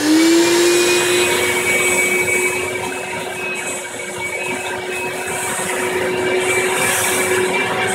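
Vacuum cleaner switched on and running, its motor pitch rising as it spins up at the very start and then holding steady, as it sucks sawdust out of freshly drilled shelf-pin holes in plywood.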